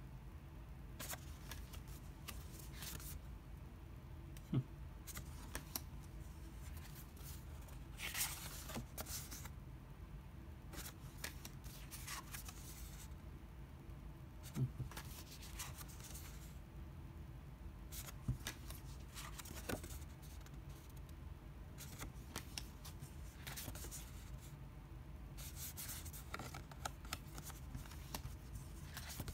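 Thin postcard-paper art cards being handled and slid over one another, in short, scattered, faint rustles and scrapes, with a few light knocks along the way.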